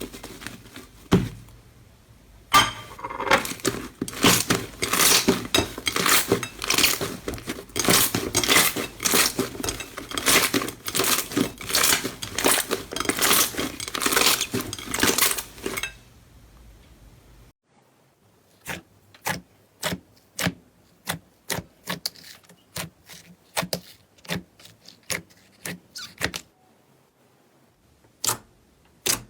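Slime being pressed and worked by hand: a long run of dense crackling and popping, then spaced sharp pops, two or three a second, after a brief quiet pause.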